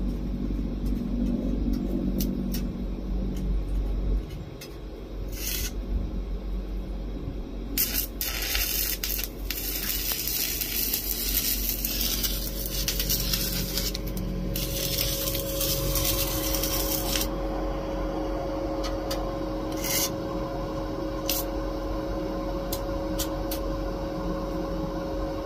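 Stick welding with a 7018 rod on a small 110-volt inverter welder. A few brief crackles come as the rod is struck, then about eight seconds in the arc holds, hissing and crackling steadily for about nine seconds, followed by a few more short pops. A steady hum comes in about halfway through.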